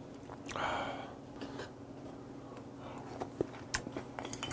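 A person eating quietly: a soft breathy chewing sound about half a second in and a few faint clicks of chopsticks, over a steady low hum of room tone.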